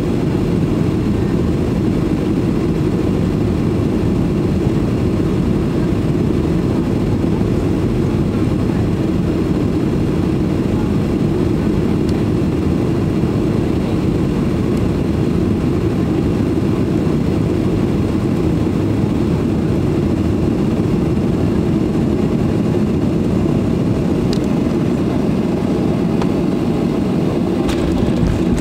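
Steady cabin roar of a Boeing 737-800 on final approach, heard from inside the cabin over the wing: engine and airflow noise as an even low rumble that holds its level throughout.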